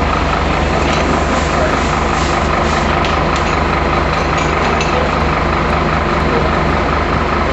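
Fire truck engine running steadily, a low even hum with a constant rushing noise over it.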